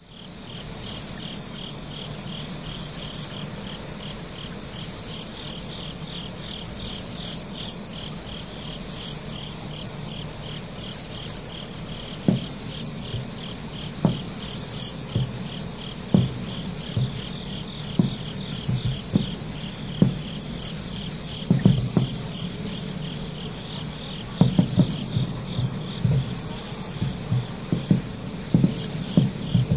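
A steady chorus of crickets and other night insects: a high buzz, a fast trill and a higher chirp about once a second. From about twelve seconds in, distant aerial firework shells burst as dull low thuds, a few seconds apart at first and coming in quick clusters near the end.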